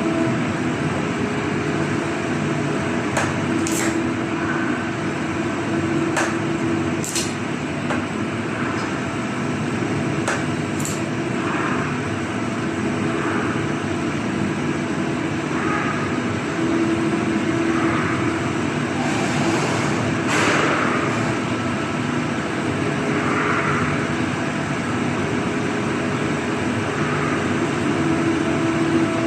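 Welding work: a steady machine drone with a low hum, and a few sharp metallic taps in the first eleven seconds. A short hiss comes about twenty seconds in.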